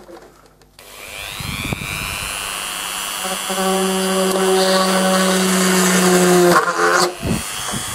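Small electric drill with a 2 mm bit boring holes in a plastic RC car body. Its motor spins up about a second in with a rising whine, runs steadily as the bit cuts, breaks off briefly about six and a half seconds in, then runs again.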